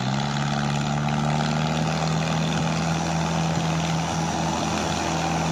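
Mahindra Arjun 555 tractor's diesel engine held at steady high revs, under load as it tows a loaded trolley up a sandy ramp. The engine has just been revved up, and its pitch holds level throughout.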